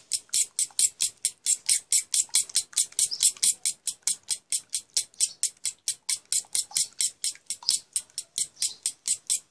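Two eggs being beaten by hand in an oiled bowl: the utensil clicks and scrapes against the bowl in a fast, even rhythm of about five strokes a second.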